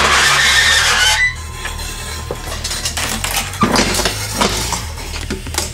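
Metal engine parts and tools clinking and knocking as they are handled on a shop bench, over a steady low hum of shop machinery. A loud rushing noise fills about the first second before it drops away.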